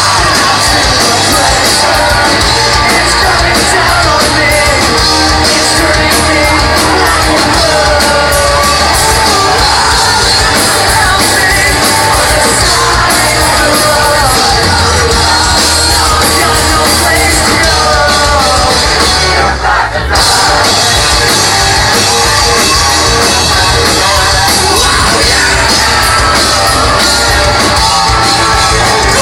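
Live rock band playing at full volume: electric guitars, bass and drums with a lead singer. The music drops out for a split second about twenty seconds in, then comes straight back.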